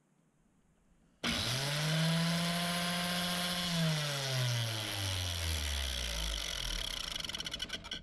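Angle grinder on a homemade piston-ring filing jig switched on about a second in, spinning up fast to a steady high whine. After a few seconds it is switched off and winds down, the pitch falling and ending in a fluttering rattle as the sanding disc slows.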